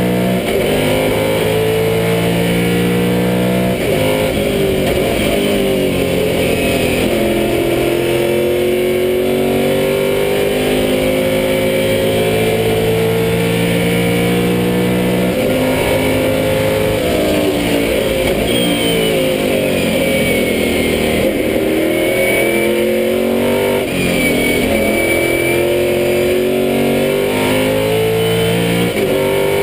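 Lola T70 Mk3b's V8 engine heard from inside the cockpit at racing speed. The engine note drops about four seconds in, then climbs steadily for around ten seconds under full throttle. It falls and wavers through the middle with lifts and gear changes, then pulls up again near the end.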